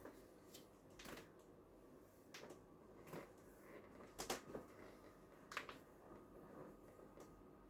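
Near-quiet small room with faint rustling and a few soft clicks or taps scattered through, the loudest about four seconds in.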